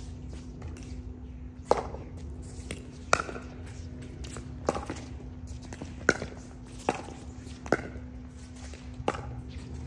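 Pickleball rally: paddles striking the plastic ball back and forth, about seven sharp pops, a little quicker in the middle, over a steady low hum.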